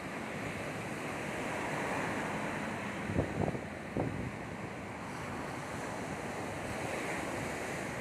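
Ocean surf breaking and washing up a sandy beach in a steady rush that swells and eases with the waves. Wind on the microphone adds a few short low thumps a little after three seconds and again at four seconds.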